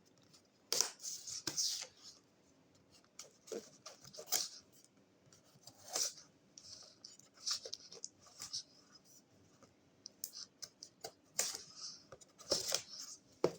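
A cardboard product box being opened by hand and its packaging handled: irregular rustling, scraping and tearing noises in short bursts with quiet gaps between.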